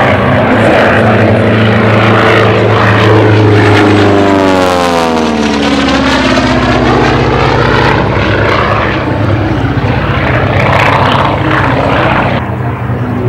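Gee Bee R-2 replica's radial engine running at display power in a low pass: a steady drone whose pitch drops about five seconds in as the plane goes by, then carries on as it pulls away. The sound changes abruptly near the end.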